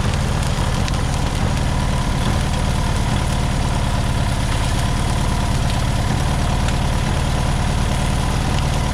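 Car engine idling steadily, its even running unbroken. The owners say it sounds like it has a blown head gasket.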